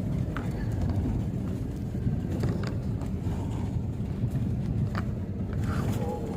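Steady low rumble of a moving vehicle heard from inside, with a few faint clicks.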